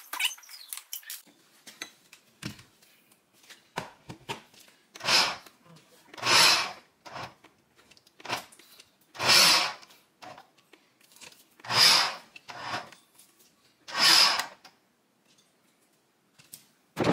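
Small electric food chopper pulsed in a series of short bursts, chopping vegetables: about five loud pulses of under a second each, with lighter taps and clicks between as the jar is handled.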